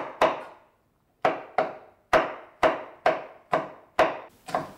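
Kitchen knife slicing a red chili pepper into rings on a wooden cutting board: about ten sharp knocks of the blade on the board, roughly two a second, with a short pause about half a second in.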